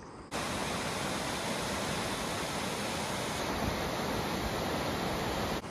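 Mountain stream rushing over rocks and small rapids: a steady, even rush of water that cuts in suddenly just after the start.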